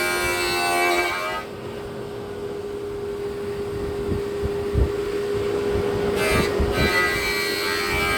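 Slab planer's router motor running with a steady whine. The higher tones drop away about a second in and return briefly near the end.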